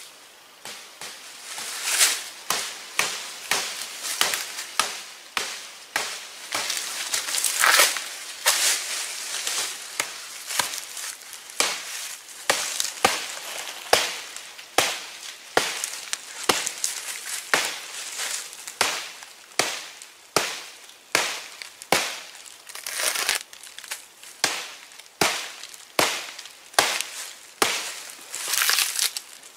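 Stone axe chopping into a thin tree trunk: a steady series of sharp blows, about one and a half a second.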